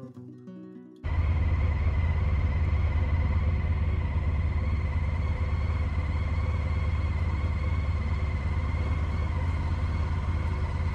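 Touring motorcycle engine running steadily at low speed, heard close up from the bike, cutting in suddenly about a second in as faint guitar music ends.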